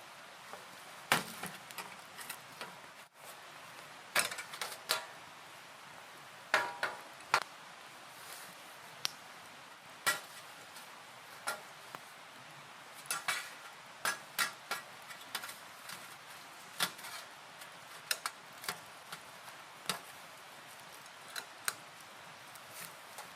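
Metal camp cookware and utensils clinking and knocking together in scattered, irregular clinks, a few ringing briefly.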